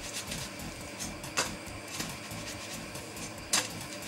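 Frying pan being swung and shaken to toss a pancake, with a steady hiss and two sharp knocks, about a second and a half in and again near the end.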